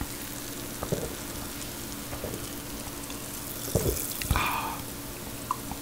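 Carbonated sparkling water fizzing in a glass as it is drunk: a steady high hiss, with a few soft swallowing sounds and a louder cluster of sounds near four seconds in.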